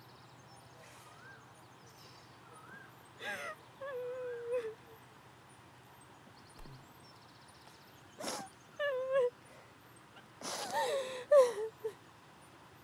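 A woman crying: short, wavering, high-pitched sobs broken by sharp gasping breaths, loudest near the end.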